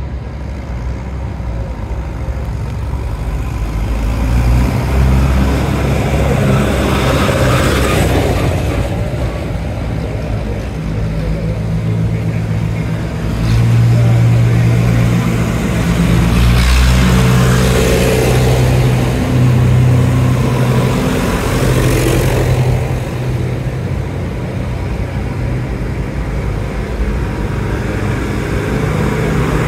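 Engine of a vintage tractor running at low revs as it approaches slowly, a steady engine drone with several swells of louder noise.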